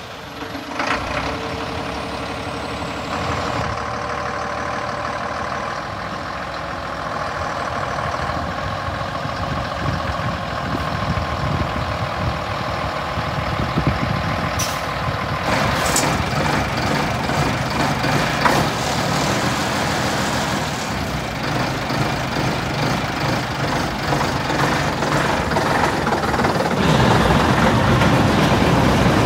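Scania T93 truck's diesel engine idling steadily just after being started, with a couple of short hisses about halfway through. It grows louder near the end.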